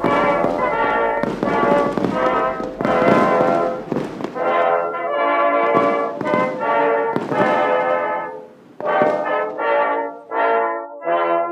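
Brass-led music playing sustained chords, with sharp hits through roughly the first eight seconds. From about nine seconds in it breaks into shorter, separated notes.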